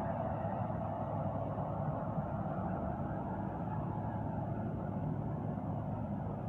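M40 compact street sweeper's engine and fan running steadily as the machine drives slowly along, an even mechanical hum.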